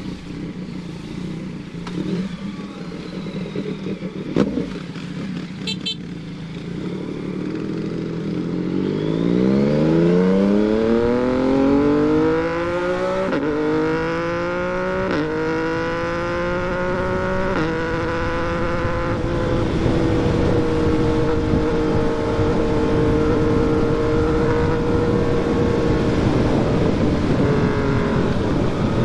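Yamaha MT-09's inline three-cylinder engine running at low revs with a brief knock about four seconds in. From about eight seconds in it accelerates hard, its note climbing through the gears with three upshifts, each a short drop in pitch, then settles into a steady cruise.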